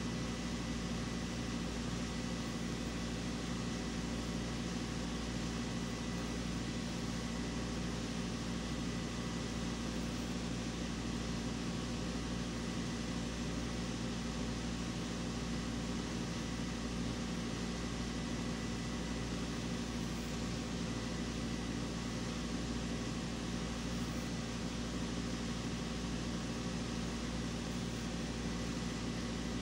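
Steady, unchanging electric hum of a running motor or fan, with a faint thin high tone through the first two-thirds.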